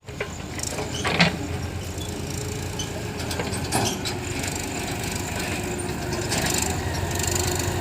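Heavy diesel machinery engine running steadily, with a few sharp knocks and clanks, the loudest about a second in.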